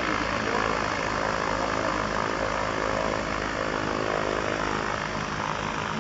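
A diesel engine driving the air propeller of a home-built pusher-propeller boat, running with a steady propeller drone and getting slightly quieter.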